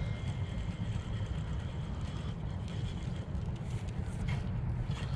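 Wind buffeting the microphone: a steady low rumble, with a few faint clicks near the end.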